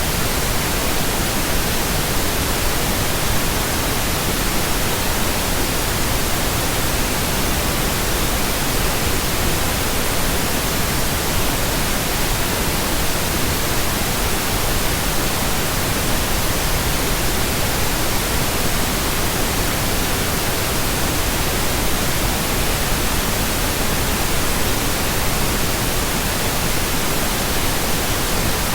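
Steady synthetic pink noise: an even, unchanging hiss with no tones, rhythm or breaks.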